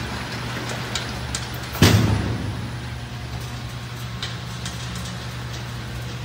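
Chain-driven assembly conveyor's geared motor running with a steady low hum, with one loud clunk about two seconds in and a few light clicks.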